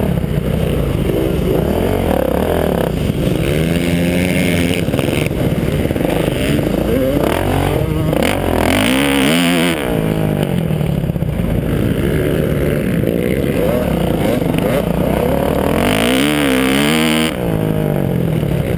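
Kawasaki KX450F dirt bike's 450 cc four-stroke single-cylinder engine running hard under racing load, its pitch rising and falling as the throttle is worked, with two sharp climbs about eight and sixteen seconds in.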